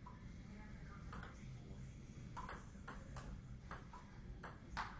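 Table tennis ball clicking off paddles and the table in a rally. There is one click about a second in, then a run of quick clicks a few tenths of a second apart from about two and a half seconds on.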